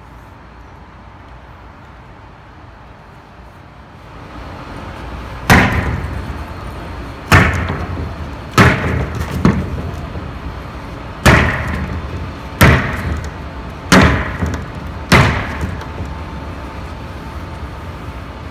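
Eight loud, sharp blows at uneven intervals, each ringing on briefly: a long-handled tool striking the painted wall panels.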